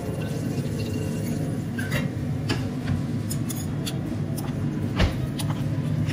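Metal kitchen utensils clinking and tapping against bowls and a pot, a wire strainer and a spoon working battered shrimp, in scattered short clicks with a louder knock about five seconds in. A steady low hum runs underneath.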